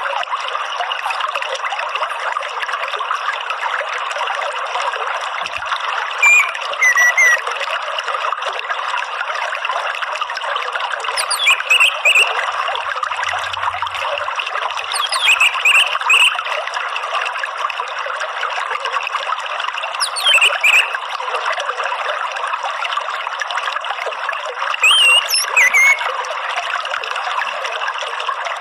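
Steady trickling running water, with short bursts of quick, high twittering from an orange-headed thrush (ngeriwik) five times, every four to five seconds. Each burst is louder than the water.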